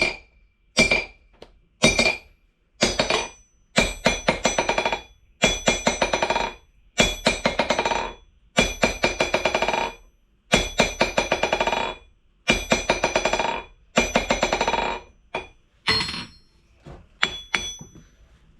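VEVOR 66 lb London pattern anvil ringing as a steel object is dropped onto its face again and again in a rebound test. Each drop bounces in a quick run of hits that come closer together as it settles, with a new drop every second and a half or so.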